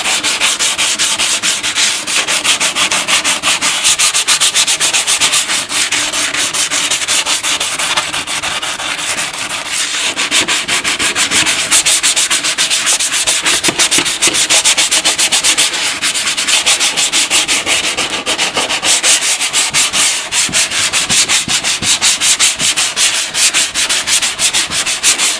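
Medium-grit sanding sponge scrubbed by hand in rapid back-and-forth strokes over the painted Honda ATC200 fender, a steady scratchy rasp as the old red paint is sanded off.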